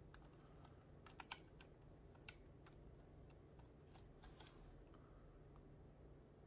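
Faint, scattered clicks and taps of Qman plastic building-block parts being handled and pressed together, a few at a time, with small clusters about a second in and about four seconds in.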